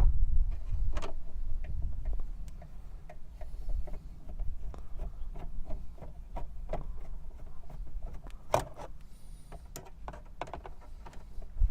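Scattered light clicks and knocks of plastic center console trim being handled and worked loose in a 1996 Subaru Outback, with one louder knock a bit past two-thirds of the way through.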